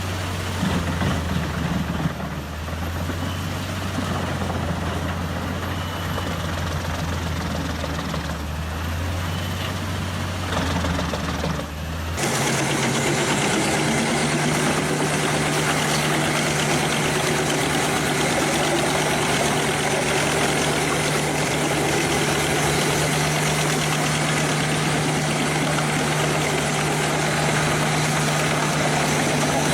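Heavy diesel engine of a forestry wood chipper running steadily under load. About twelve seconds in, the sound cuts abruptly to another chipper running, with a steady, higher-pitched hum.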